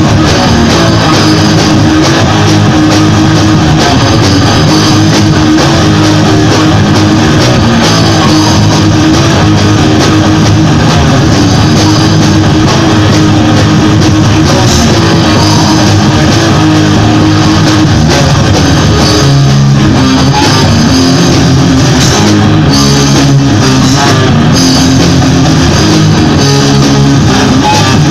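A three-piece rock band jamming loudly on electric guitars and a drum kit, with no vocals. The riff changes about two-thirds of the way through.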